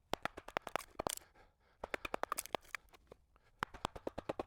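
Rapid light wooden clicks and clatter in three quick bursts, split cedar shakes knocking together as they are handled.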